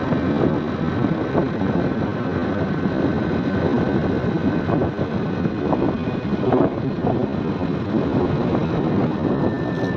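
Motorcycle engine running steadily while the bike is ridden along, with a faint steady whine above the engine noise.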